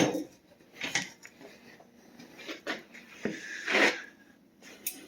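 Handling noise: a sharp knock at the start, then scattered clicks and clunks and a short scraping rustle about four seconds in, as objects are moved and set down.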